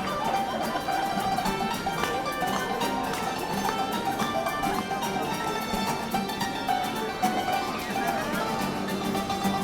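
Street musicians playing instrumental music: quick runs of notes over a recurring low held note.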